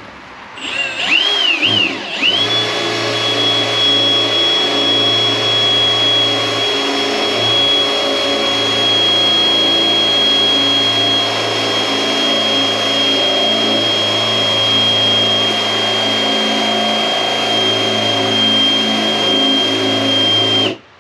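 Small electric motor spinning up with a wavering whine, then running at a steady high whine for about eighteen seconds before cutting off suddenly.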